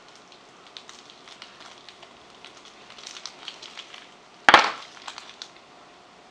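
Light clicks and crackles of kitchen prep, with one sharp knock about four and a half seconds in.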